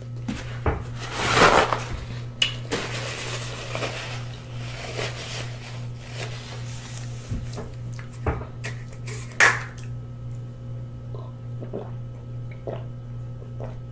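Eating sounds: chewing and mouth noises, a paper napkin wiped across the mouth, and orange juice drunk from a plastic bottle near the end, over a steady low hum. The loudest moments are a burst of noise about a second and a half in and a short, sharp noise at about nine and a half seconds.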